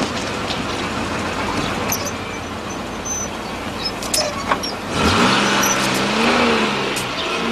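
Ford Granada Mk1 car engine running, with a few sharp clicks over it; about five seconds in it gets louder and its pitch rises and falls as the car pulls off.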